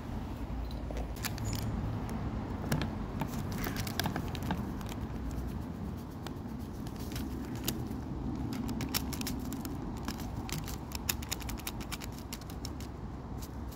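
Foil seasoning sachet crinkling and crackling as it is torn open and shaken out over an instant noodle cup, in quick irregular clicks over a steady low background rumble.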